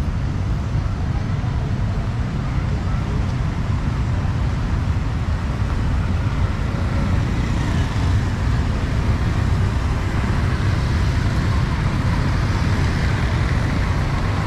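City road traffic: motor scooters, auto-rickshaws and cars driving past in a steady wash of engine and tyre noise, a little brighter near the end as vehicles pass closer.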